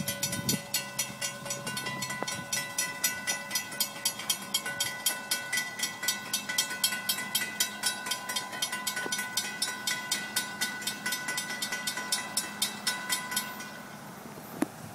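Railroad grade-crossing warning bell ringing in rapid, regular strokes as the crossing signals flash, warning of an approaching train. It stops about a second and a half before the end, once the gates are down, and a single sharp click follows.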